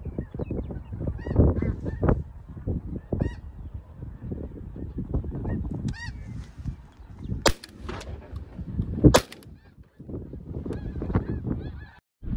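A large flock of snow geese calling overhead, a steady chorus of short yelping honks under a low buffeting rumble. Two sharp bangs about a second and a half apart come late on, the second the loudest sound here.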